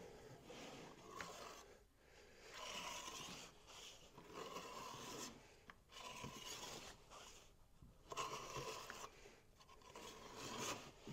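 Faint scraping of a notched steel trowel spreading thick MS 262 flooring adhesive across a wooden subfloor, in a series of sweeping strokes each about a second long with short pauses between them.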